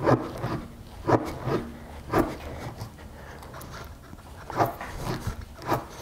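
Tire plug kit rasp tool scraping in and out of a nail puncture in a car tire's tread, a run of short rasping strokes with a pause in the middle. It is roughening the hole so the plug will go in.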